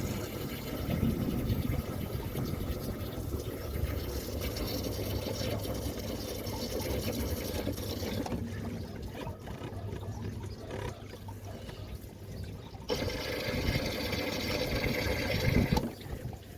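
Water from a garden hose flushing through a Sprinter van's radiator and engine cooling passages and running out. The flow's sound shifts about halfway through and turns brighter and louder for a few seconds near the end.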